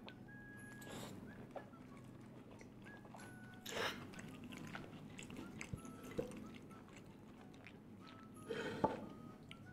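Chewing and crunching on fried chicken with a crispy Super Ring snack coating, with two louder crunchy bites, about four seconds in and near the end. Faint background music runs underneath.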